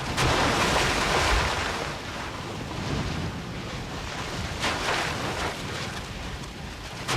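Natrocarbonatite lava churning and spattering in Ol Doinyo Lengai's crater, a rushing noise like surf that surges loudest at the start and again about five seconds in.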